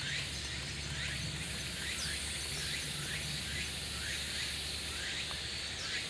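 A flock of Japanese white-eyes giving short, thin downslurred contact calls, two or three a second, over a steady high hiss.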